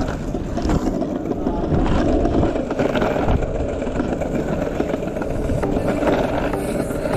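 Longboard wheels rolling over pavement: a continuous rumble with irregular clicks and knocks.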